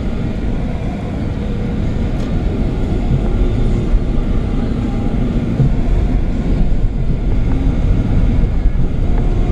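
Engine and road noise inside a moving Ford car's cabin: a steady low rumble that grows a little louder a few seconds in.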